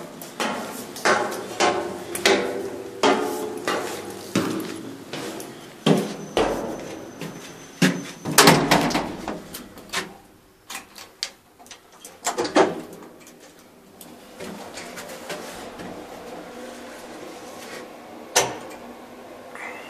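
Footsteps on steel grating stairs in an echoing concrete stairwell, followed by a few clicks and clunks from a lift's key switch and door. From about two-thirds in, the lift runs with a steady hum, broken by a single clunk near the end.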